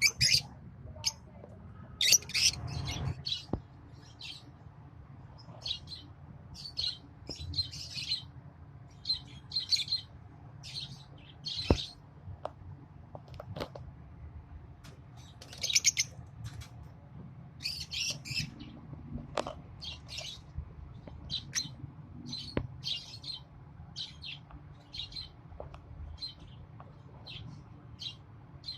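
Lovebirds chirping in short, high, repeated calls, several a second at times, with a few sharp clicks among them.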